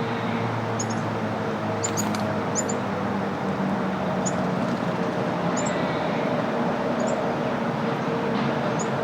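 Small birds chirping in short, high calls repeated every second or so, over a steady hum of road traffic.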